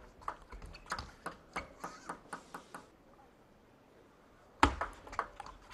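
Table tennis rally: a celluloid ball clicking off the rubber bats and the table in quick alternation for about three seconds. Near the end, after a short pause, comes a sharper hit followed by a few lighter ball bounces.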